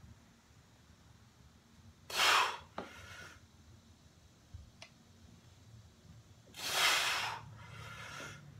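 A weightlifter breathing hard through the mouth under a near-maximal dumbbell preacher-curl set. There are two forceful exhales, about two seconds in and again about seven seconds in, and each is followed by a shorter, softer breath.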